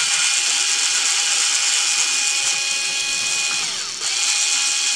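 Cordless electric screwdriver whirring steadily as it backs a screw out of a laptop's bottom case. About three and a half seconds in, the motor slows with a falling pitch, then it starts up again.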